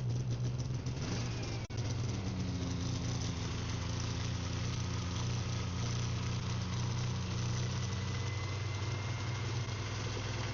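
Yamaha PZ500 Phazer snowmobile's two-stroke twin engine running at a steady idle with the choke on, freshly started after its repair. The running briefly dips once about two seconds in.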